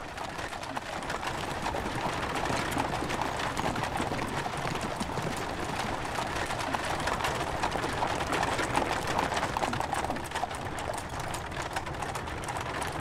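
Several horses galloping, a dense steady patter of hoofbeats, with a horse-drawn wooden cage cart rolling along with them.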